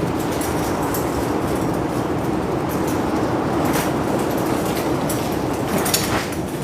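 Strong wind buffeting the microphone: a steady, loud rumble, with a couple of brief knocks, one about four seconds in and one near the end.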